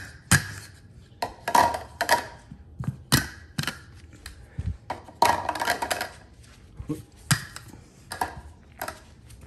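VEX Tipping Point game rings being picked up off the floor and knocked together in the hand: an irregular string of light knocks and clatters, about one or two a second.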